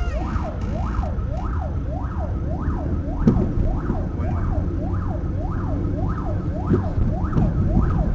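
Police car siren in a fast yelp, rising and falling about twice a second, over the steady low rumble of a car driving. A thump about three seconds in and another near the end.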